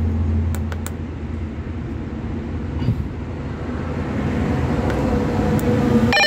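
Steady rumbling background noise with a low hum and a few faint clicks about half a second in; just before the end a ringing electronic tone of several pitches starts.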